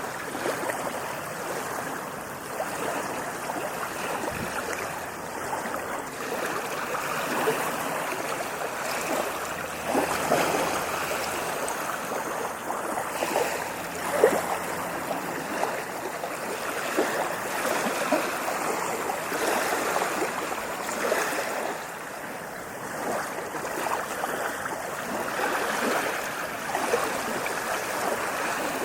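Ocean waves washing and splashing at the shore: continuous churning water with no quiet gaps between waves, and a few louder splashes about ten and fourteen seconds in.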